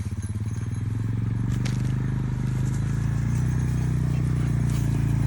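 Small vehicle engine running steadily under way, with a fast even pulse, slowly getting louder.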